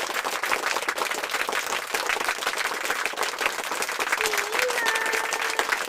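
Hands clapping in a dense, continuous patter like applause. A voice sings a held, wavering note in the last second and a half.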